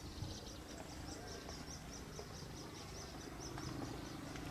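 Diesel locomotive of an approaching express train heard from a distance: a low engine hum that grows louder from about three seconds in. Over it runs a steady series of high chirps, about five a second, from a calling small creature.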